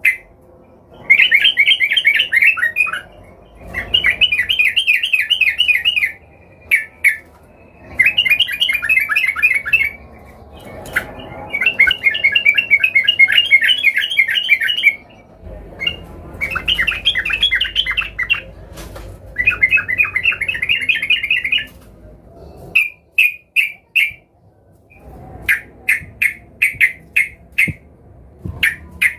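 Yellow-vented bulbul singing in rapid chattering phrases of one to three seconds each, six in a row, followed near the end by a string of short single notes.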